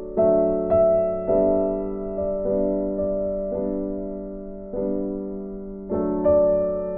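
Background music: slow, gentle piano notes struck about once a second, each fading away before the next.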